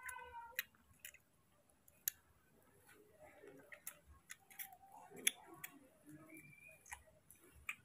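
Baby monkey chewing and mouthing a piece of fruit held in a person's fingers: soft, irregular wet clicks and lip smacks.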